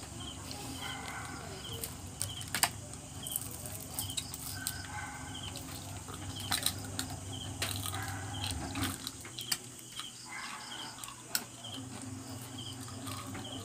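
Crunching and cracking of crispy deep-fried native crab shells as they are bitten and broken apart by hand, in scattered sharp cracks. Under it, an insect chirps in short, evenly repeated bursts over a low steady hum.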